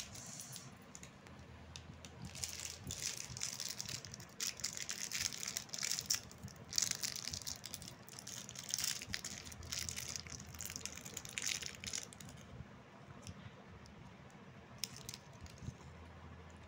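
Plastic candy wrapper crinkling and crackling as it is handled and torn open, in dense bursts from about two seconds in until about twelve seconds in, then only a few soft clicks.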